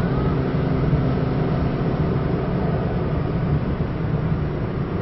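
Inside the cabin of a McLaren 620R at around 160 km/h: the 3.8-litre twin-turbo V8 holds a steady drone over tyre and road noise as the car slows slightly.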